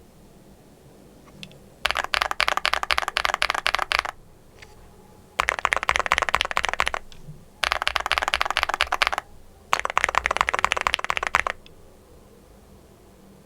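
Typing on the EPOMAKER x Feker Galaxy80 TKL mechanical keyboard: four quick bursts of rapid keystrokes, each lasting a second and a half to two seconds, with short pauses between them.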